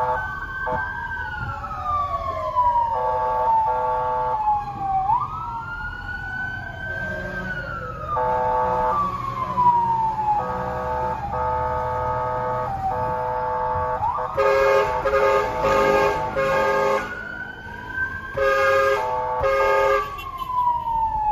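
Fire truck siren wailing, its pitch slowly rising and falling over and over. Repeated horn blasts cut in between the wails, some as several quick short blasts, over city traffic.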